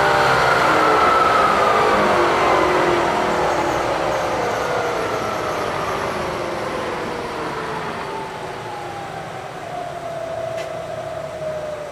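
Bridgeport vertical mill's spindle motor and head spinning down after being switched off from high range: a machine whine of several tones that slides steadily down in pitch and fades.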